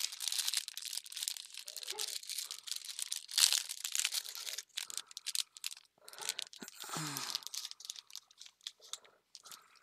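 Crinkly plastic packets of craft embellishments rustling and crackling as they are handled. The rustling is dense for the first few seconds, then comes in short scattered bursts.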